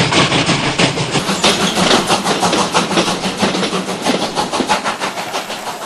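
Model train running on its track: rapid, even clicking of the wheels over the rail joints over a steady motor hum, slowly getting quieter.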